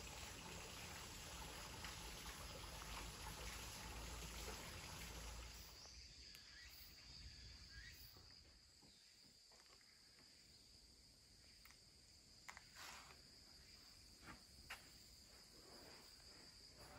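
Near silence: faint outdoor ambience with a steady high-pitched insect drone, and a few faint ticks in the second half.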